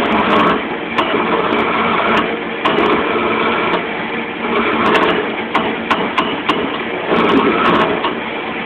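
Wood lathe running, with a turning tool scraping a spinning wooden spindle: a steady motor hum under a rough cutting noise that swells and eases as the tool bites, with sharp ticks now and then.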